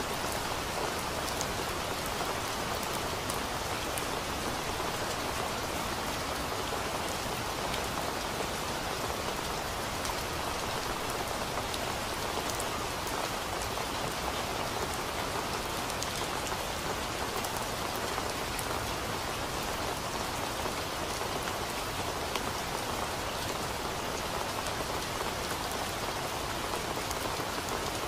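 Steady rain falling on tree foliage: an even hiss with scattered sharp ticks of individual drops.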